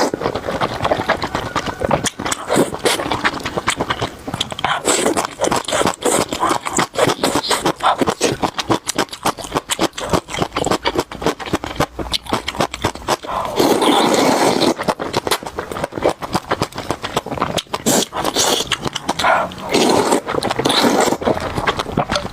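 Close-miked eating: rapid, irregular crunching and chewing clicks, with two denser, louder stretches, about 13 and 19 seconds in.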